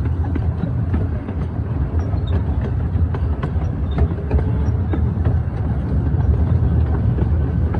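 Billy Jones Wildcat Railroad's miniature steam locomotive No. 5 running with its train, chugging over a steady low rumble of the wheels on the track, with scattered faint clicks.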